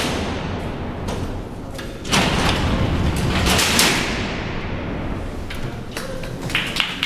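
Alcatraz cell house's remotely operated steel cell doors sliding along their tracks and slamming shut. A sudden crash comes at the start, then a heavier, longer rumbling slam about two seconds in that dies away over a few seconds.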